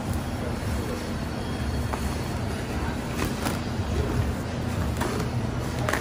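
Plastic bubble wrap and bags rustling and crinkling as they are pulled off a stainless steel exhaust, with a few sharp crackles, over a steady low rumble.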